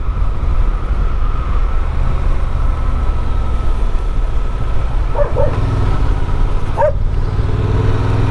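Honda Transalp 750's parallel-twin engine running under way, with heavy wind rumble on the rider's microphone. A dog barks twice, about five and seven seconds in.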